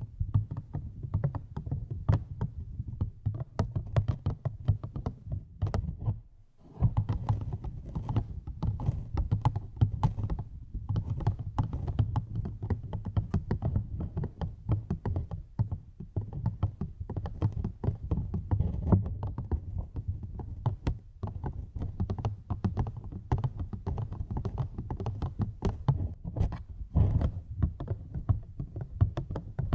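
Rapid close-up ASMR tapping, a fast, uneven run of soft taps and thunks right at the microphone, with a brief pause about six and a half seconds in.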